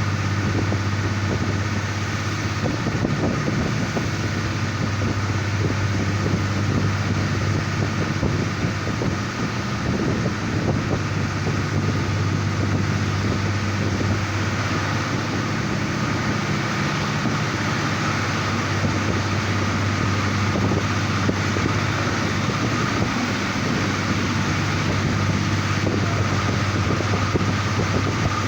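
Diesel railcar under way, heard at an open window: a steady low engine drone over running noise from the wheels on the track and wind rushing past.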